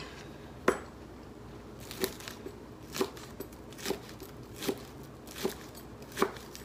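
Chef's knife slicing green onions on a plastic cutting board: a slow, even run of sharp knocks of the blade on the board, about eight in all, a little under one a second.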